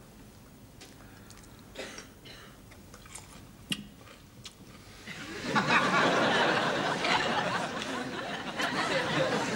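A few faint clinks of cutlery and glass at a meal table, then about five and a half seconds in a studio audience bursts into sustained laughter.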